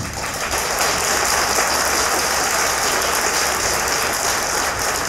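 Audience applauding steadily in an arena.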